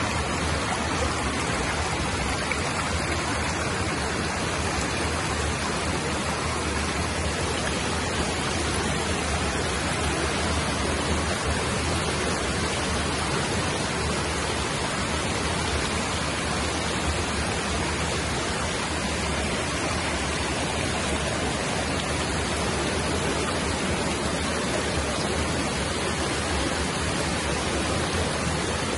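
Fast shallow stream rushing over rocks, a steady unbroken rush of water.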